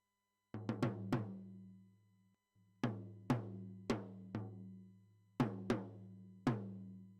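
Recorded acoustic drum kit playing back in short phrases: a quick run of four hits about half a second in, then groups of four and three hits, each hit sharp and ringing out, with brief gaps between phrases.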